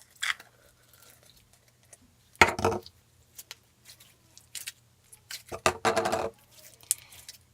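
Handling sounds from a slime kit: scattered light clicks and taps of small hard pieces and containers, with two louder rustling bursts about two and a half and six seconds in.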